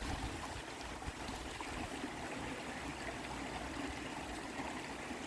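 A river's shallow stream running steadily over stones, with an even trickling rush of water.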